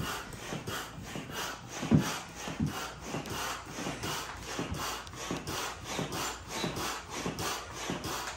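A hand pump inflating an inflatable paddle board, worked in quick steady strokes: a rhythmic rush of air about three times a second. There is a louder thump about two seconds in.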